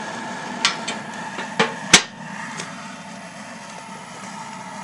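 Steel firebox door of a smoker being shut and its metal latch lever thrown: a handful of sharp metal clicks and clacks over the first two and a half seconds, the loudest about two seconds in, over a steady hum.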